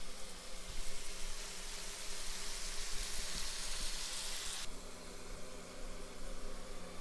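Seasoned fish fillets sizzling in hot oil in a nonstick frying pan, a steady hiss that cuts off abruptly about four and a half seconds in, leaving a faint low hum.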